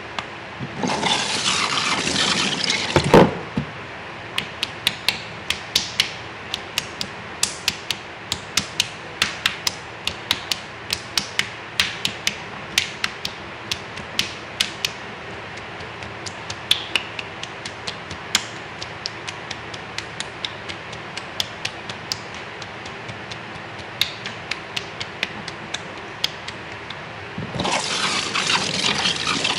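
Water running from a handheld shower sprayer at a shampoo basin for a couple of seconds near the start and again from near the end. In between come many sharp clicks, a few a second, that thin out in the second half.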